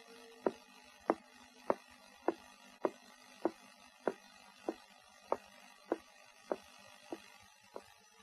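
Footsteps walking steadily across a wooden floor as a cartoon sound effect, about three steps every two seconds, growing fainter toward the end.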